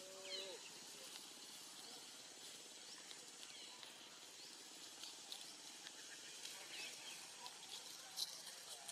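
Faint outdoor tree-canopy ambience: a steady high hiss with scattered short chirps, and one brief low call just at the start.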